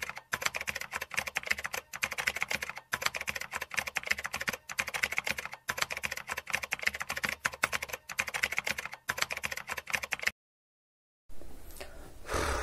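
Rapid typing on a computer keyboard: a dense clatter of key clicks in short runs, stopping abruptly about ten seconds in.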